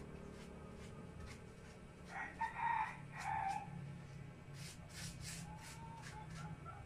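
A rooster crowing once about two seconds in, a single cock-a-doodle-doo of about a second and a half, over a steady low hum.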